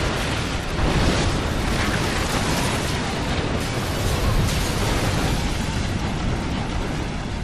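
Rough sea: a loud, steady roar of surf and breaking waves, with surges of rumble.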